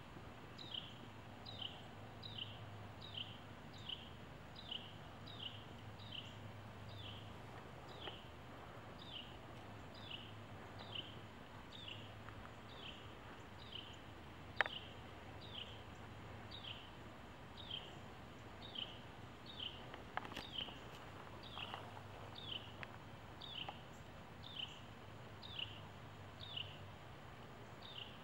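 A bird calling over and over, a short down-slurred chirp repeated a little more than once a second, faint over a low background hum. A single sharp click comes about halfway through.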